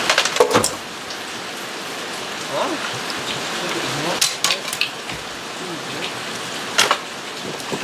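Plastic interior trim clips and panels of a 1999 Jeep Cherokee being pried loose, snapping sharply a few times: once at the start, twice around the middle and once near the end. Under them is a steady rain-like hiss.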